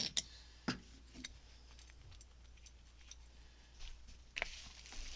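Parts of a disassembled ATV starter motor being handled: a few sharp clicks in the first second or so, then a longer scrape near the end.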